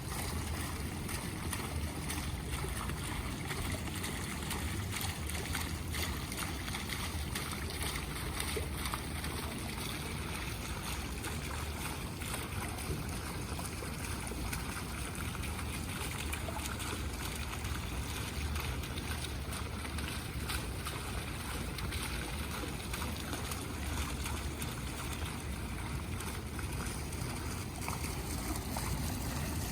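Water fountain splashing steadily, a constant rush of falling water.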